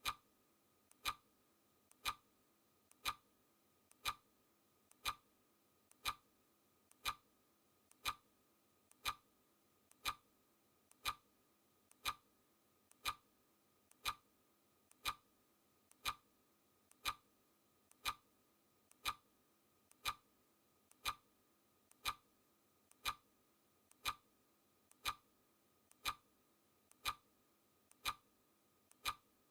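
Clock-ticking sound effect: a steady, even tick about once a second, with a softer tick between the main ones.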